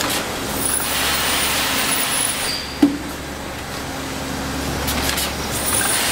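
Thermoforming machine running through its cycle over a steady low hum: a long rush of air about a second in, a single sharp clunk near the middle, and then the air rush starting again near the end.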